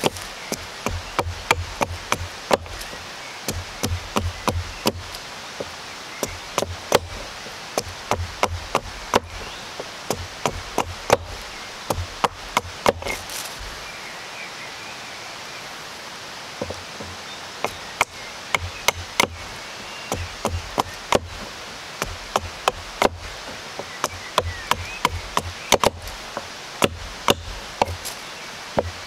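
A hatchet chopping and shaping a small block of wood braced on a log: a run of short, sharp wooden strokes, about two a second, with a pause of a few seconds about halfway through.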